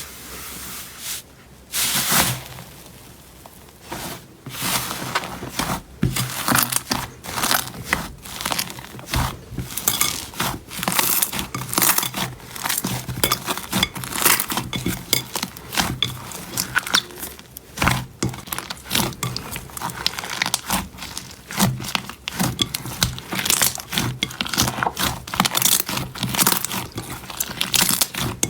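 Slime being squeezed and worked by hand, giving a dense, continuous run of sticky crackles and pops that starts about two seconds in.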